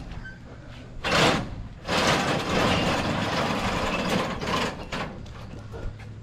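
Sickle knife of a John Deere 640FD draper header being pulled out through its guards: metal scraping and rattling as the knife slides, a short loud scrape about a second in, then a longer sliding scrape of about three seconds, over a steady low hum.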